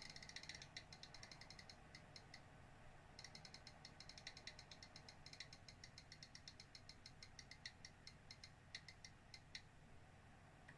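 Faint, rapid small clicks and ticks in quick runs of several a second, with a short pause about two and a half seconds in, stopping shortly before the end.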